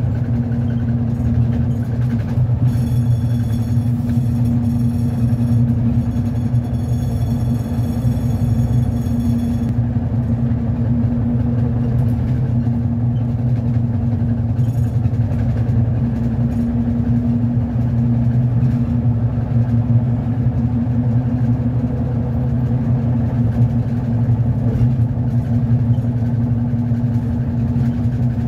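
Steady low engine hum and cabin drone inside a city bus, heard from a passenger seat. A faint high whine sits over it for several seconds near the start.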